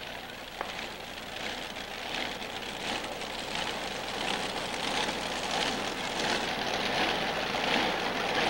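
Modified pulling tractor's engines running at the starting line, a steady rushing drone that grows a little louder.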